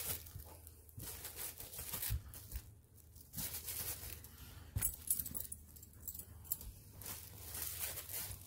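Corgi chewing and tearing at a plush pumpkin toy: irregular bursts of fabric ripping and rustling, on and off.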